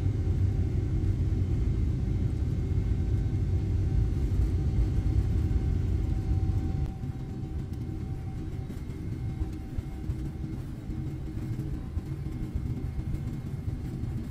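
Cabin noise of a Boeing 777 rolling on the ground: a steady low rumble from the wheels and airframe, with a faint steady whine from the jet engines. The rumble eases somewhat about halfway through.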